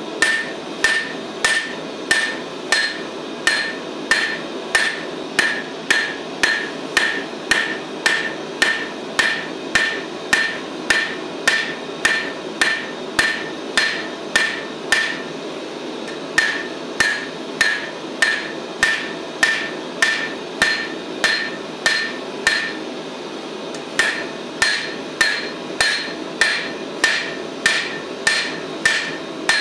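Hand hammer striking red-hot steel on an anvil at a steady pace of about two blows a second, each blow with a bright ring. The hammering stops for about a second twice, about halfway through and again near three-quarters of the way, over a steady rushing noise in the background.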